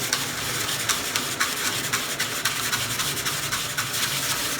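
Coarse 80-grit sandpaper wrapped round a wooden dowel rubbing back and forth over a wooden spatula's surface in steady, even strokes, hand sanding out tool marks.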